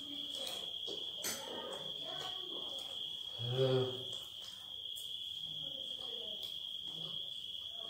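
A cricket's steady high-pitched trill. A short hummed voice sound comes about three and a half seconds in.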